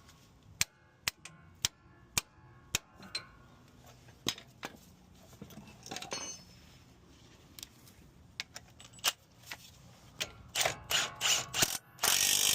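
Ratchet wrench clicking as it tightens the forcing screw of a ball joint separator on a steering joint. The clicks are scattered at first, then come quickly and loudly near the end as the screw is driven to pop the joint loose.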